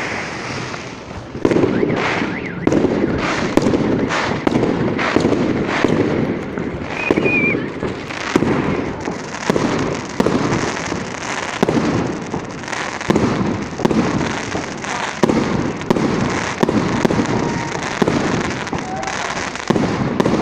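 Fireworks display: a rapid, continuous string of aerial shell bursts, about one to two bangs a second, each followed by a crackling, rumbling tail.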